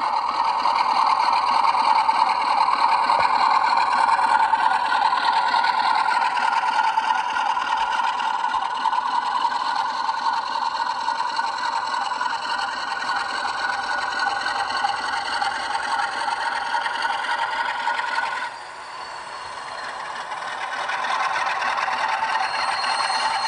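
A Bachmann Class 47 model locomotive's sound decoder playing its diesel engine sound through the model's small onboard speaker as the loco pulls away. The engine note holds steady with several tones, drops suddenly about 18 seconds in, then builds back up.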